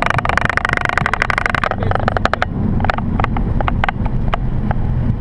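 Cockpit noise of a Boeing 737's landing rollout: a loud rushing sound from the engines in reverse thrust, with rapid rattles and knocks from the wheels on the runway. About two seconds in, the rushing drops away, leaving a low rumble with occasional knocks.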